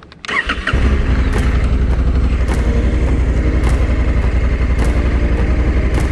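A motorcycle engine is cranked by its starter, catches a little under a second in, and then idles steadily and loud, close to the microphone. A light tick recurs a little more than once a second.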